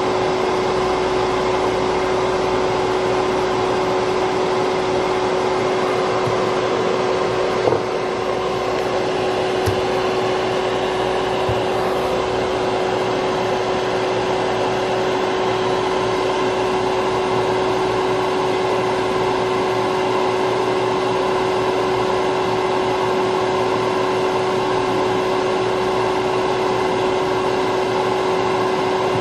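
Steady whir of a small electric fan or blower on the repair bench, with a constant hum, and a few faint clicks about eight and ten seconds in.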